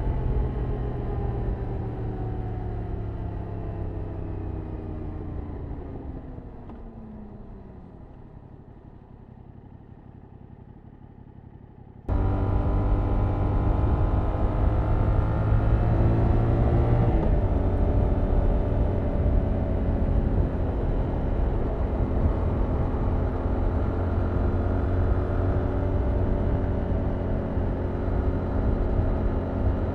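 Yamaha MT-07's 689 cc parallel-twin engine and stock exhaust on the move. For about the first twelve seconds the revs fall and the sound fades as the bike slows; then it comes back loud and sudden under throttle, with a gear change about five seconds later and revs rising again at the end.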